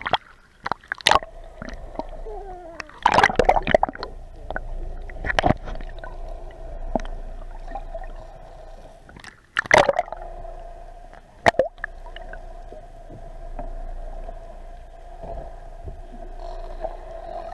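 Muffled water rushing and gurgling around an action camera held underwater, with a steady hum throughout and several sharp knocks, the loudest about three seconds in and again near ten seconds.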